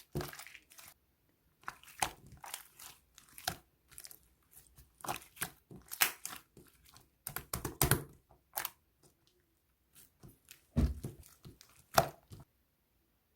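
Slime being squeezed and poked by hand: irregular crackling, popping clicks in short clusters with brief pauses, the sharpest pops about eleven and twelve seconds in, then quiet to the end.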